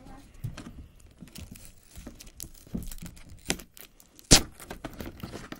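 Hands pulling and prying at a cardboard toy box, with rustling and scattered clicks and one sharp, loud snap a little over four seconds in.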